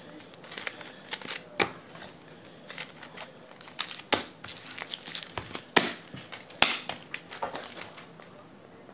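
Plastic trading-card holders and packaging being handled on a tabletop: scattered, irregular clicks, taps and crinkles.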